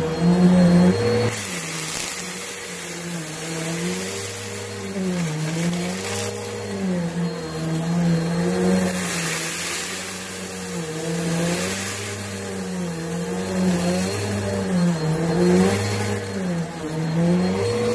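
Bissell Helix Turbo upright vacuum cleaner running on carpet, its motor hum and suction rush dipping and rising in pitch every couple of seconds as it is pushed forward and pulled back.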